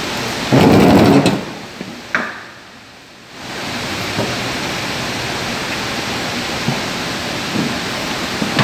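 A plastic washing-machine tub being handled and turned over: a loud scraping thud about half a second in, a short click near two seconds, then a steady hiss.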